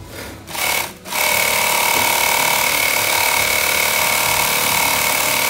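Industrial sewing machine stitching a seam in a fabric racket bag. It gives a brief burst about half a second in, then runs steadily at speed for about four and a half seconds with a high whine.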